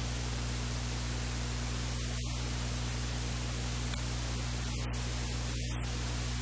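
Steady hiss with a low electrical hum underneath, unchanging throughout.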